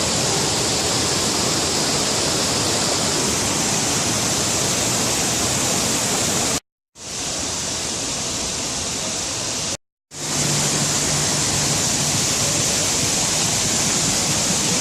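Steady rushing of a waterfall, a full even roar of falling water. It cuts out completely twice for a moment, about six and a half and ten seconds in.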